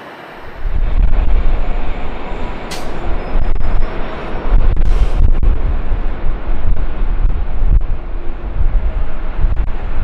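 A heavy jet airliner's engines rumbling loudly at close range, the rumble starting abruptly about half a second in. Two brief sharp noises cut through it, near three and five seconds in.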